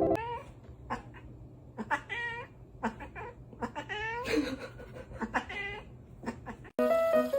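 A cat meowing about four times, drawn-out calls that bend up and down in pitch, the longest in the middle, with short clicks between them.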